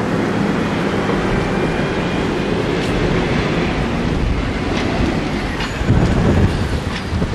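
A wooden roller coaster train, the Giant Dipper, running along its track in a steady rumble that swells about six seconds in.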